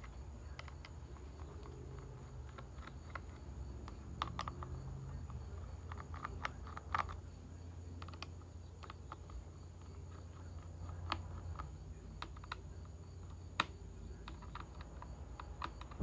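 Small screwdriver working the hard-drive screws in an open laptop chassis: faint, irregular metal clicks and ticks, with a few sharper clicks.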